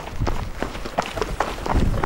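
Running footsteps, a quick regular patter of about four or five footfalls a second, with a low rumble of wind on the microphone.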